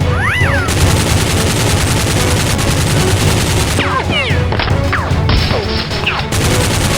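Sustained rapid gunfire sound effects dubbed over action background music, with a few short falling whistles cutting through near the start, about four seconds in and again about six seconds in.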